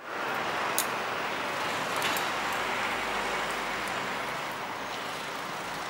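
Steady hiss of road traffic, with a low rumble that swells and fades in the middle as a vehicle passes, and a couple of faint clicks.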